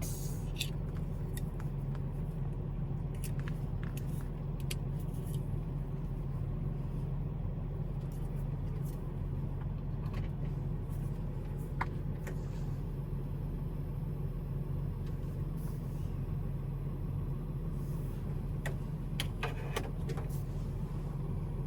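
Steady low hum of a running car, heard inside the cabin, with scattered faint clicks and rattles. No radio buzz is present: a ground loop noise isolator in the aux line has removed it.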